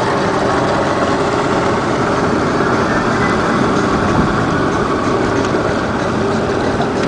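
A boat's twin Yamaha outboard motors running steadily, a continuous engine drone mixed with rushing noise.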